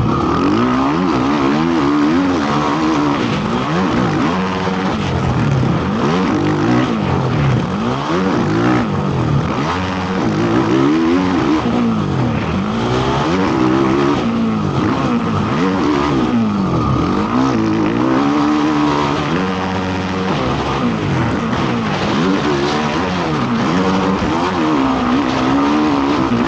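Motocross racing ATV (quad) engine ridden hard, revving up and falling back over and over, the pitch rising and dropping every second or two as the throttle is opened and shut.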